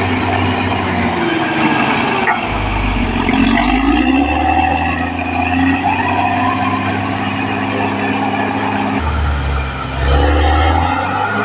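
Caterpillar D6R XL bulldozer's diesel engine running hard, its pitch rising and falling as it works, with a change in the low engine note about nine seconds in.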